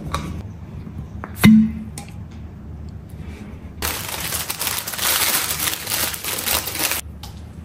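A single sharp knock with a brief low ring about one and a half seconds in, then about three seconds of loud crinkling of plastic packaging as a plastic-wrapped pack is pulled from a cardboard box and handled.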